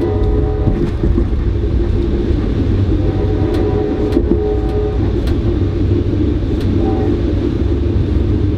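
Amtrak passenger train running, heard from inside a coach: a steady rumble with a few faint steady tones, and several short sharp clicks in the middle.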